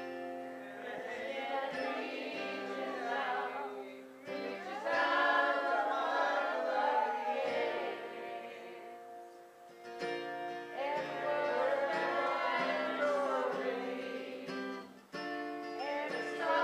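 A small group of voices singing a song together over amplified instrumental accompaniment with held chords. The sung phrases break briefly about every five to six seconds.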